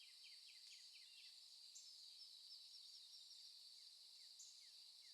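Faint nature-ambience background: a steady high insect drone with runs of short, quick, falling bird chirps.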